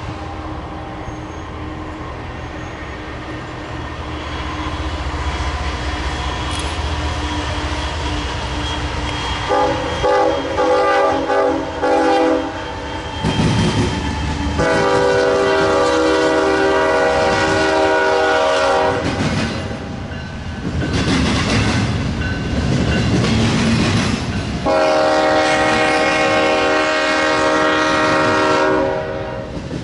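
A train passing with its horn sounding a chord of several notes: a few short blasts, then two long blasts, over a low engine rumble that builds at first and the noise of the train rolling by between blasts.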